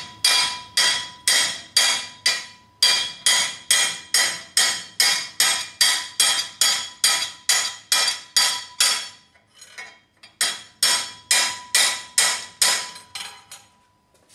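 Hammer blows on a steel plate clamped in a bench vise, struck steadily about three times a second to bend it, each blow a sharp metallic clang with a ringing tail. The blows pause briefly about nine seconds in, then start again.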